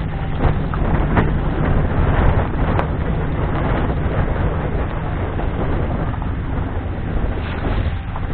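Strong wind buffeting the camera's microphone: a steady low rumble that gusts louder about a second in and eases after about three seconds, with a few sharp knocks.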